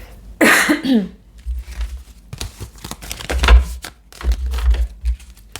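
Tarot cards being shuffled and handled: crisp rustling and flicking with a few dull knocks against the table. A brief voiced exclamation comes about half a second in.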